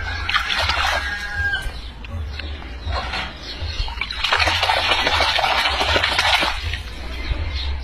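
Water splashing in a basin as a hand scoops and throws it over a chicken floating on its back. The splashing comes in a burst of about two seconds starting around four seconds in, with a few short calls near the start and a steady low rumble underneath.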